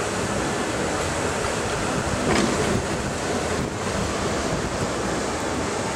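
Steady wash of crowd and street noise from a large outdoor gathering, mixed with wind on the microphone; it swells briefly about two and a half seconds in.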